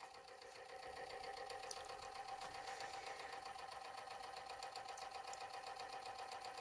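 Homemade 3D-printed Newman motor running on its own commutator: a faint steady hum with a fast, even pulsing as the magnet rotor spins and the brushes switch the coil, growing slightly louder about a second in.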